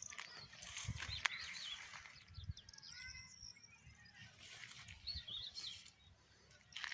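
Small birds chirping outdoors in short, wavering high calls at intervals, with one sharp click about a second in.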